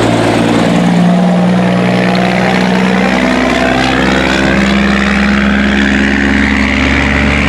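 Loaded log truck's diesel engine pulling hard uphill in a low gear, a loud steady drone whose pitch sweeps up and down.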